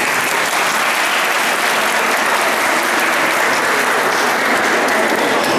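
Audience applauding, a dense clapping that eases off near the end.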